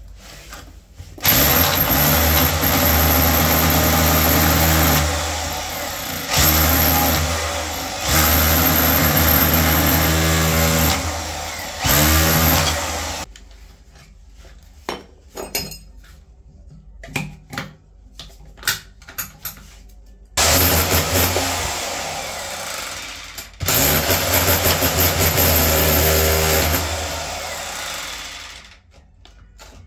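Electric power tool running in several long bursts, its motor winding down in pitch at the end of each; lighter clicks and knocks in the pause between roughly 13 and 20 seconds in.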